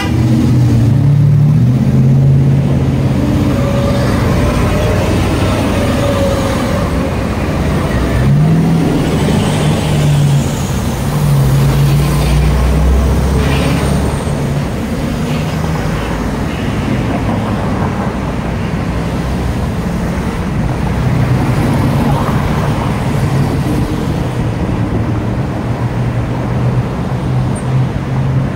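Street traffic: cars driving past with steady engine and tyre noise, engines speeding up now and then. Around the middle a car-carrier truck passes with a deeper, heavier rumble.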